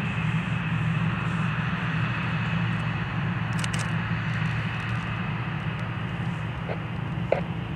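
A Boeing 787's jet engines running at taxi power: a steady noise over a constant low hum, with a brief click near the end.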